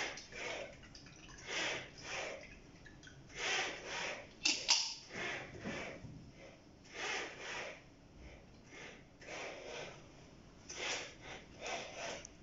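Inverted pendulum's cart shuttling on its linear rail in short, irregular bursts of noise about once a second as the controller keeps the pendulum carrying a glass of coffee balanced. There are two sharp clicks about four and a half seconds in.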